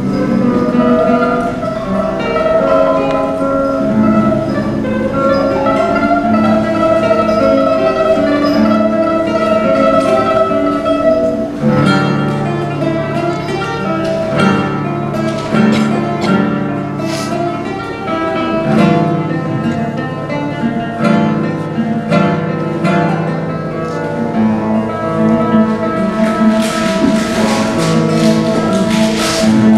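Classical guitar played live: a slow melody of held notes over plucked bass notes. Near the end a hissing, rattling noise joins the guitar.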